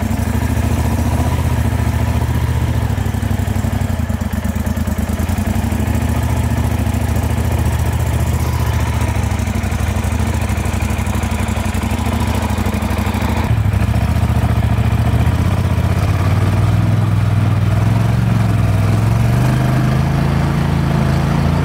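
Duck boat's surface-drive mud motor running steadily under way, its pitch creeping up slightly in the last few seconds.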